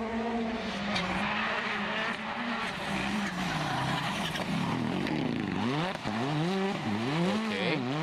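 Rally car engine at high revs. From about five seconds in, its note rises and falls sharply several times as the car slides through a corner.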